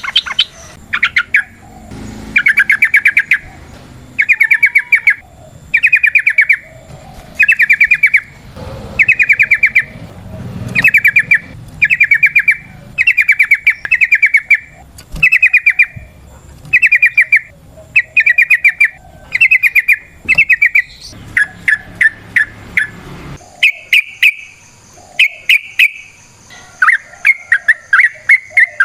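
Yellow-vented bulbul (trucukan) singing: a rapid chattering phrase repeated roughly once a second, turning into shorter, choppier notes toward the end.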